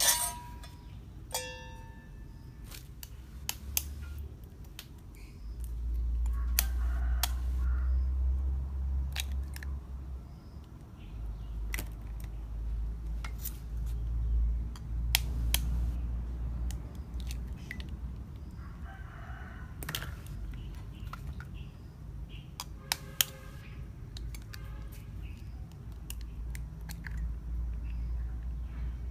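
A rooster crows about a second in, and fainter fowl calls follow later. Scattered sharp clicks and knocks and a low rumble come through at the same time.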